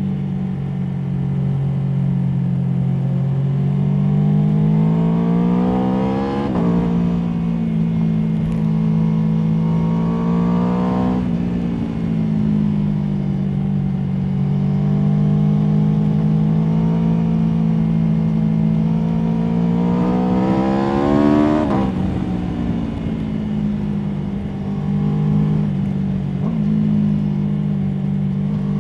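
Aprilia Tuono V4's V4 engine pulling hard through the gears, its pitch climbing steadily and then dropping sharply at each gear change, three times: about 6 seconds in, about 11 seconds in and about 21 seconds in.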